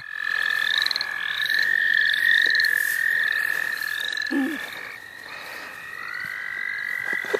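Spring frog chorus: a continuous high trill, with short rising trilled calls repeating above it about twice a second. A brief low sound comes about four seconds in.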